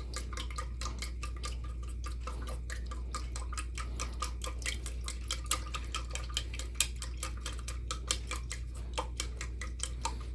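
A utensil stirring water mixed with glue and rubbing alcohol in a container, clicking rapidly and irregularly against its sides several times a second: snow globe fluid being mixed.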